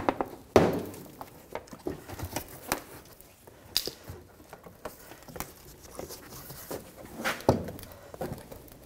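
GMC Acadia's rear bumper cover being pried and pulled free of its retaining clips: an irregular string of sharp snaps and knocks. The loudest comes about half a second in, and two more come close together near the end.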